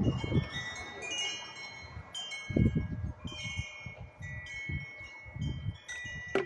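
Wind chimes ringing, many clear high notes struck one after another and fading out, with irregular low thuds and handling noise underneath.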